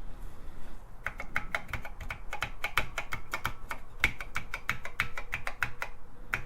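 TRS-80 Model I computer keyboard keys being pressed one after another, about four clicks a second, starting about a second in. The keys are being pressed in turn to test whether each one registers.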